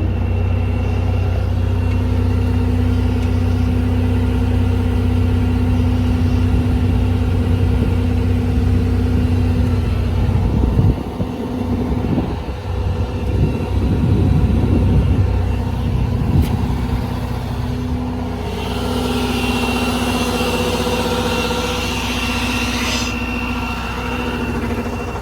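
6.7 Cummins diesel running steadily with the PTO driving the hydraulic air compressor. The engine note wavers unevenly for several seconds in the middle, then a hiss of air runs for about four seconds near the end.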